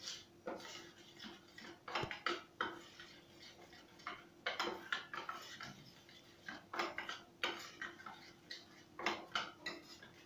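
Metal spoon stirring a thick mustard-and-poppy-seed spice paste in a small steel bowl, with irregular clusters of scrapes and clinks against the bowl. A faint steady hum sits underneath.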